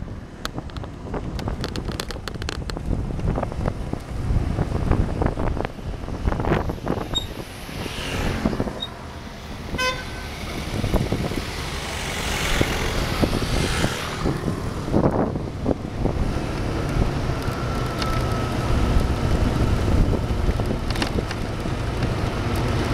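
Motor vehicle noise heard while riding along a town street: a low, uneven engine and road rumble with passing traffic, and a thin steady tone for a couple of seconds past the middle.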